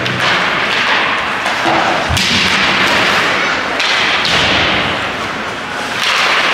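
Ice hockey rink sound: skate blades scraping and carving the ice in repeated hissy strokes, with a heavy thud about two seconds in, like a puck or a player hitting the boards.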